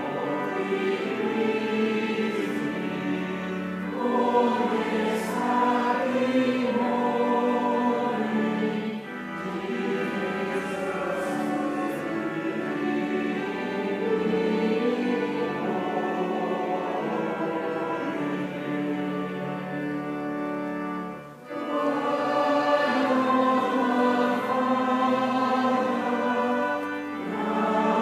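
Choir singing in long held notes, phrase after phrase, with a brief break between phrases about three-quarters of the way through.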